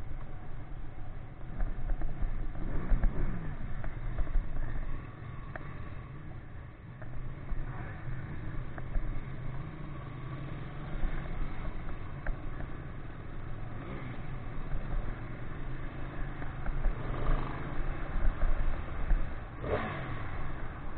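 Ducati 959 Panigale's L-twin engine running while riding, its pitch rising and falling several times as it revs and eases off, quieter for a couple of seconds about five seconds in.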